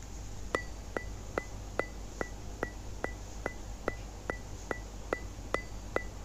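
Steady ticking, about two and a half ticks a second, each tick a short click with a brief high ping. A low steady hum runs underneath.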